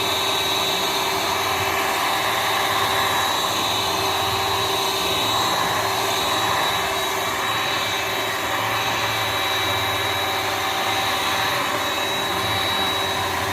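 Electric mixer running steadily, a constant motor whine as its beaters whip eggs and sugar into a stiff batter.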